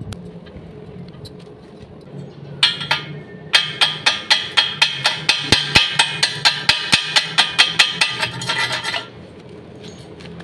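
Chipping hammer knocking slag off a fresh stick weld on steel rebar and square tube: a short burst of taps, then a steady run of sharp, ringing metal-on-metal strikes, about five a second, stopping near the end.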